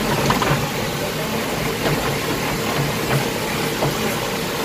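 JCB excavator's diesel engine running steadily, heard from inside the operator's cab, with a few light clicks.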